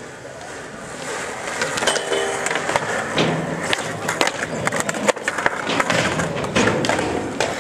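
Skateboard wheels rolling on a concrete skatepark, with sharp clacks from the board several times as it is popped and lands.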